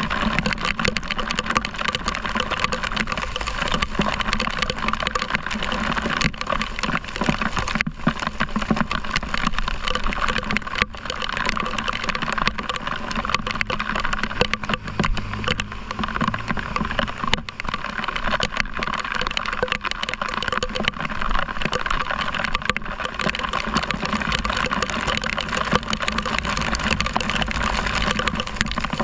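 Heavy rain and tyres hissing on a wet road over the steady running of a motor scooter's engine. An oncoming truck's engine passes about halfway through.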